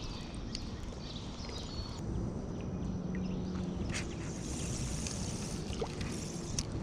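Steady low rumble of wind on the microphone with a few faint clicks.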